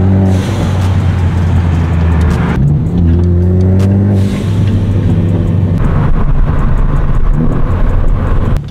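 Turbocharged four-cylinder engine of a modified Ford Focus ST running under way, a steady low drone heard from inside the cabin, with a few small shifts in pitch as the car speeds up and eases off.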